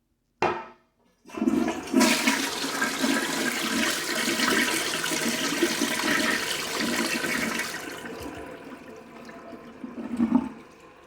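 Crane toilet flushing: a short sharp noise, then a loud rush of water through the bowl that tapers off after about six seconds. A brief loud surge comes near the end, before a faint hiss of the tank refilling.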